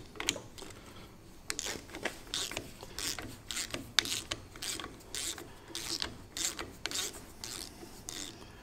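Hand ratchet clicking in short rasping bursts, two or three a second, as an extractor socket backs a badly rounded nut off a threaded stud.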